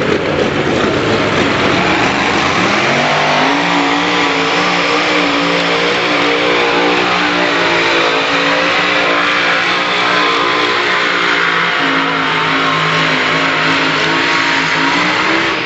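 Large engine running loud, rising in speed about two and a half seconds in and then held at a steady high speed.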